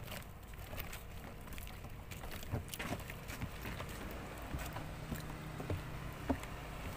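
Low steady drone of a distant motorboat engine over the water, with wind rumbling on the microphone and a few light clicks.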